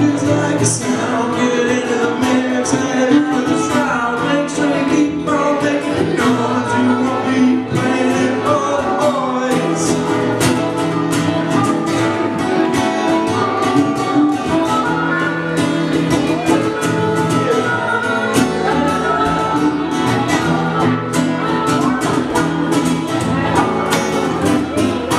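Live acoustic band playing: upright bass, strummed acoustic guitar and harmonica. The guitar strumming gets busier about ten seconds in.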